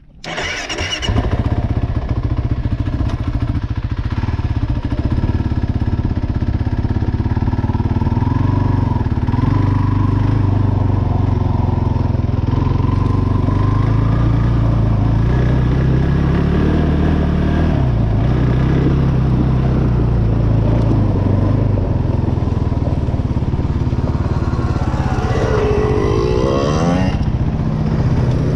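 Kawasaki KFX 450R quad's single-cylinder four-stroke engine starts about a second in, then runs with its revs rising and falling as it rides, climbing in revs near the end.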